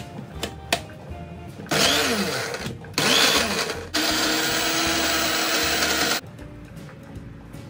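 Countertop electric blender chopping red and green chillies and other sambal ingredients into a liquid paste. It runs in two short pulses, then for about two seconds more, and stops suddenly. A few small clicks of the plastic lid being fitted come just before it starts.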